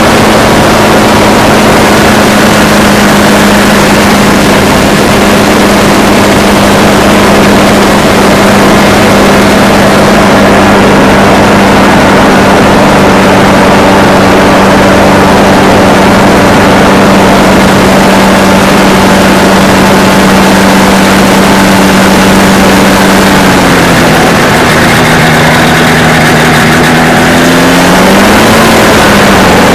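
Ultralight trike's engine running loud and steady close by as the aircraft taxis. Its pitch dips a few seconds before the end and climbs back near the end.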